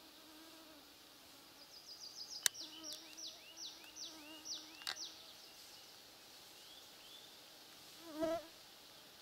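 Mosquitoes whining steadily close to the microphone, one passing right by it near the end with a brief louder buzz. In the middle a small bird sings a quick run of high falling notes, and two sharp clicks come a couple of seconds apart.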